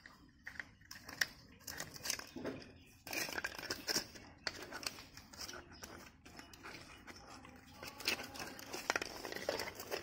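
Pug puppy chewing and gnawing on a rubber ball: irregular scraping and rustling with many short clicks of teeth on rubber.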